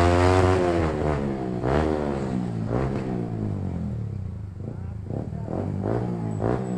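Yamaha R15M's single-cylinder engine through a loud aftermarket full exhaust, ridden at low speed with the throttle worked up and down. The pitch falls, rises twice, then gives several short revs near the end.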